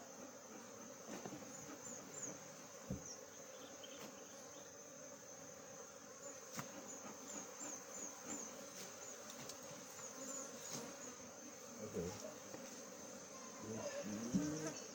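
Faint honey bees buzzing around an opened beehive, a steady drone. Above it runs a thin high whine with small repeated chirps, and there are a few soft knocks.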